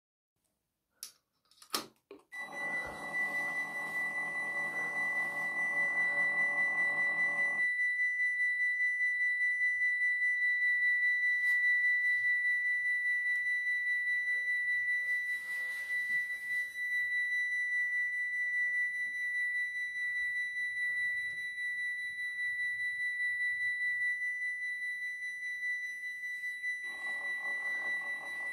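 Model Dutch level crossing's electronic warning bells ringing as one steady, rapidly pulsing high tone, starting after a couple of clicks about two seconds in. The small barrier motors whir along with it for about five seconds while the booms lower, and start again near the end as the booms rise.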